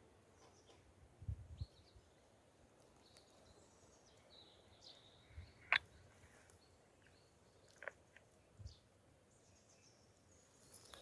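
Faint, scattered short bird chirps in a quiet spring forest. A sharp click near the middle is the loudest sound, with another a couple of seconds later and a few soft low thumps.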